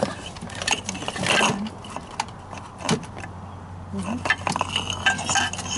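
Irregular clicks and light metallic rattling from tools and seat hardware being handled at a van seat base.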